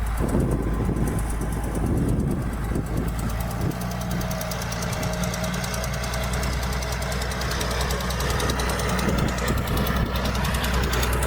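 Diesel engine of heavy earthmoving machinery running steadily: a low drone with a rattle.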